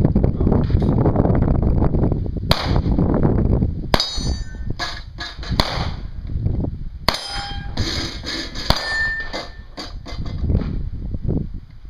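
Colt 9mm submachine gun fired in single shots, several sharp reports about a second and a half apart, each followed by the ring of struck steel targets.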